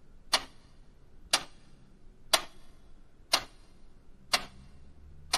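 A ticking-clock sound effect: six sharp ticks, evenly spaced one second apart.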